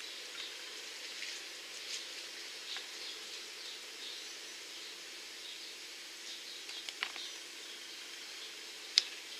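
Quiet room tone with a faint steady hum and soft handling noises: a few light clicks and rustles as a small plastic toy ring and a paper checklist are handled, with one sharper click near the end.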